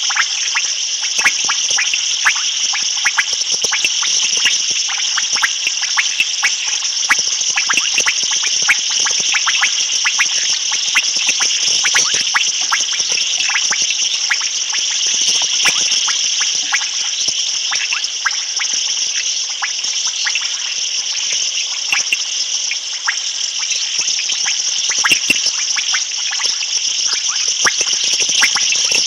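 Night chorus of frogs and insects: a steady high-pitched trilling with many quick clicks and calls over it.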